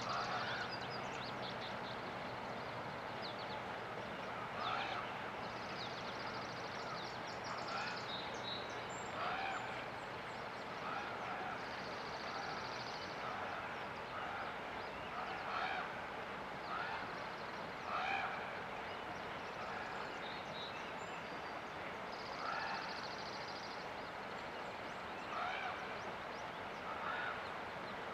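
Steady rush of river water with birds calling over it: short repeated calls every second or two, and now and then a high buzzy trill.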